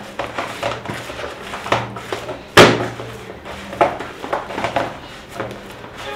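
Chapati dough kneaded by hand in a plastic basin: soft, irregular thuds and knocks, with one sharper knock about two and a half seconds in, over a low steady hum.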